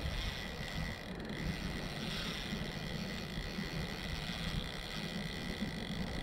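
Wind rumbling on the microphone, a steady flickering low buffet, with a faint steady high whine under it.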